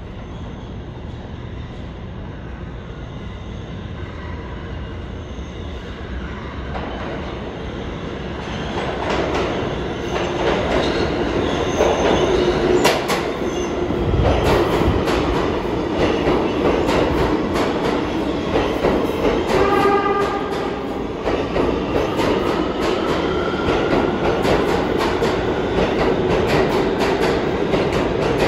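New R211 subway train approaching through the tunnel and running past the platform. A rumble builds over the first several seconds, then wheels clatter over rail joints and squeal as the cars go by. A rising whine comes in near the end.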